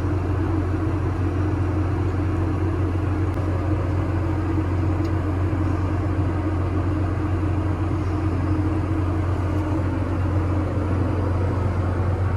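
A vehicle engine running steadily under constant load: an even, low drone with no changes in pitch.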